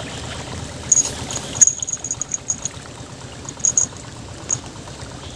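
Steady rush of a fast, rain-swollen river, with a run of short high tinkles about a second in and a few more near four seconds.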